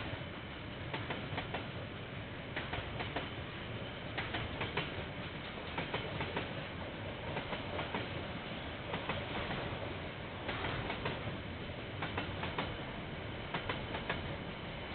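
Train passing on the KiwiRail line, a steady rumble with the wagon wheels clicking over rail joints in clusters every second or so, heard through a security camera's microphone.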